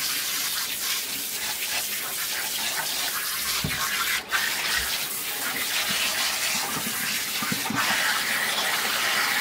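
Handheld shower sprayer running steadily, water spraying onto a cat's wet fur and splashing into the bathtub as the shampoo is rinsed out, with a brief dip about four seconds in.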